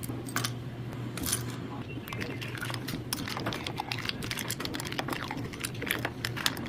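Kitchen utensils clicking and clinking against dishes, rapid and irregular, over a steady low hum.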